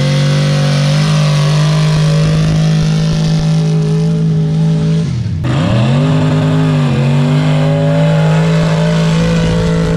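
A mud drag-racing vehicle's engine running hard at high, steady revs as it races down the dirt track. About five seconds in, the engine pitch dips briefly, then climbs back up and holds high again.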